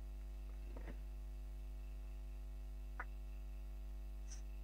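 Steady low mains hum, with a faint click about three seconds in.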